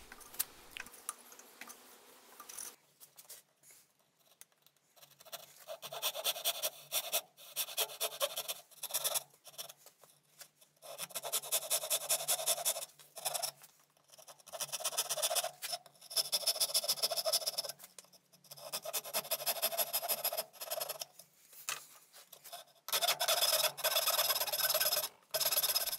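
Fine-toothed dovetail saw cutting dovetail pins in softwood by hand, in repeated runs of rapid short strokes with brief pauses between cuts. Near the end, a coping saw cuts out the waste between the pins.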